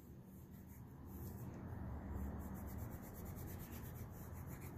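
Crayon scribbling back and forth on a sheet of paper, colouring in a shape, growing louder about a second in.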